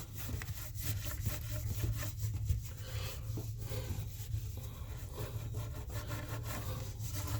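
Hand work at an old brass bathtub overflow fitting: an uneven run of scraping and rubbing strokes with small knocks, over a steady low hum.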